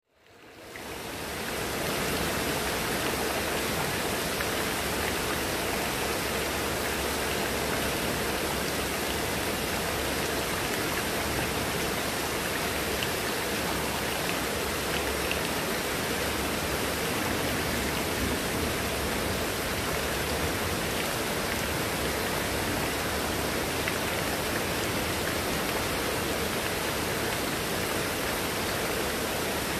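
Heavy rain falling steadily, a dense even hiss that fades in over the first two seconds.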